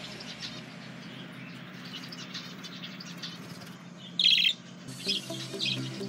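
Budgerigars chirping, many short high chirps, with one louder call about four seconds in.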